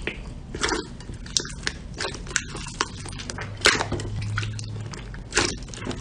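Slime being squeezed and worked by hand: irregular wet squishes and sticky pops, the loudest about two-thirds of the way through, over a faint steady low hum.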